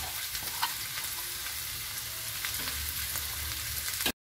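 Chilies, shallots and garlic sizzling in hot oil in a wok as shredded tuna goes in, a steady hiss with a few light clicks of a metal spatula against the pan. The sound cuts off suddenly near the end.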